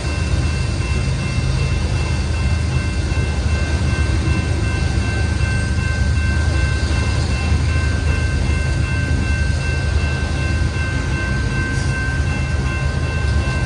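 Coal hopper cars of a Union Pacific coal train rolling steadily past: a loud, continuous low rumble of wheels on rail. A few steady high-pitched ringing tones run over it.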